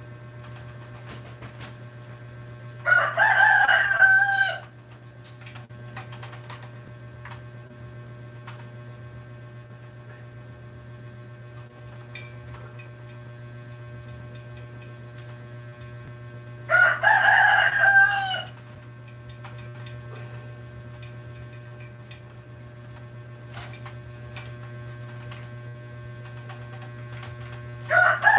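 Rooster crowing three times, about 14 seconds apart, each crow about a second and a half long, the third starting near the end. A steady low hum runs underneath.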